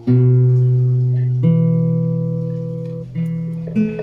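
Background music of slow plucked-string notes, four in all, each starting sharply and ringing out as it fades.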